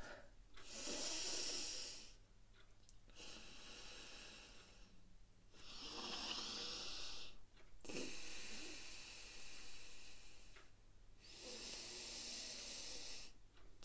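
A man breathing slowly and deliberately through one nostril at a time, the air hissing in and out of his nose, in Anulom Vilom alternate-nostril breathing. About five long breaths of two to three seconds each, with short pauses between.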